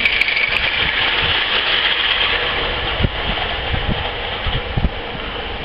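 Live-steam garden-scale locomotive hissing steam steadily, easing a little after about four seconds, with a few dull low thumps.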